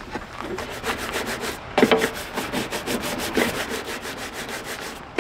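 Cloth scrubbing a trailer galley's stainless-steel stove top, a rapid scratchy back-and-forth rubbing, with a louder knock about two seconds in and another a little past three seconds.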